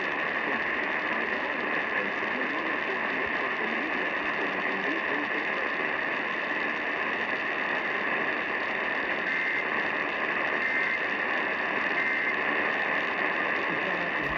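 Heavy static on a weak AM radio signal, with an Emergency Alert System tornado warning barely coming through. About nine seconds in come three short, faint data bursts about a second apart: the alert's end-of-message tones.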